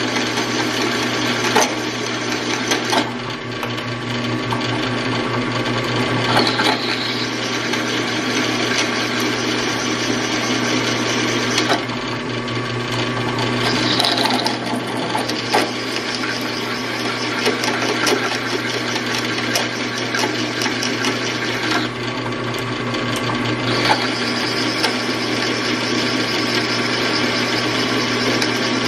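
WEN 4225 15-inch drill press at about 300 RPM driving a 5/8-inch high-speed-steel bit through one inch of hot-rolled steel: a steady motor hum under the hiss and grind of the cut. The cutting noise drops back and picks up again a few times, with scattered sharp clicks.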